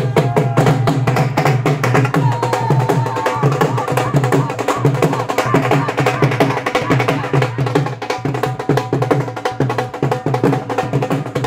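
Dhol drums played live in a fast, steady rhythm of rapid strokes.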